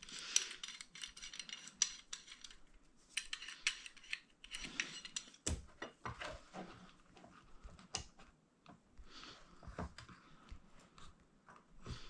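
Metal worm-gear hose clamps clinking and rattling as they are fitted around a glued RC car tire, with a run of small irregular clicks and light knocks.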